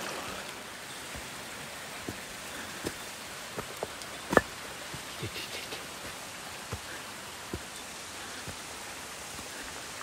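Steady rush of a mountain stream, with scattered light clicks and knocks over it; the sharpest knock is about four seconds in.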